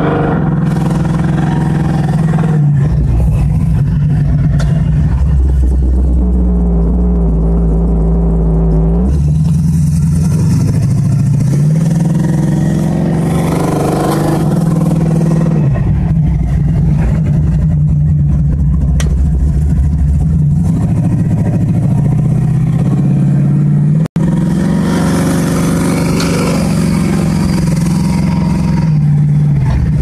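Classic car's engine heard from inside the cabin, climbing in pitch under acceleration and dropping back several times as the car is driven hard through the gears or lifted off. The sound cuts out for an instant about three-quarters of the way through.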